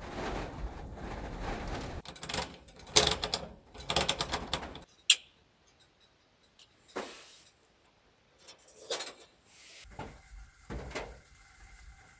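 Metal clicking and rattling as a kerosene stove is handled and lit, with a single sharp click about five seconds in, then a few soft knocks. A steady rushing noise runs for the first two seconds.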